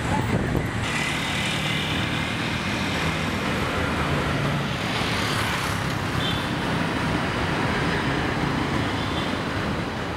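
Steady street traffic noise, with road vehicles and their engines running.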